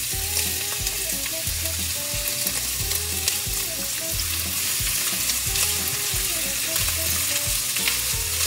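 Chopped Spanish onions sizzling in sunflower oil in a stainless steel sauté pan, stirred with a slotted spatula that ticks against the pan.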